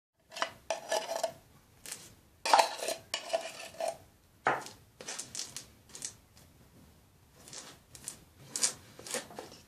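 Metal spoon scraping and clinking inside an opened tin can of boiled condensed milk, scooping out the thick caramel, loudest in the first four seconds. Lighter scraping follows as it is spread over a wafer cake layer with a knife.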